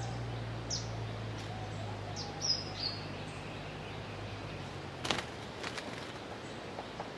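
Stripe-throated bulbul giving a few short, sharp, descending call notes, scattered through the first three seconds, over a steady low hum that fades out past the middle. Two or three sharp clicks come about five seconds in.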